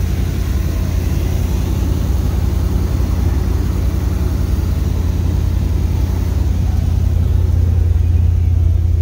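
A 1979 Corvette's small-block V8 running at a steady fast idle while still warming up, a continuous low rumble that grows a little louder near the end.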